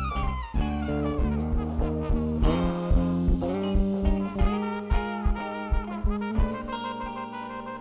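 Band music with a steady drum beat: a long falling glide in pitch near the start, then a climbing line of held instrumental notes.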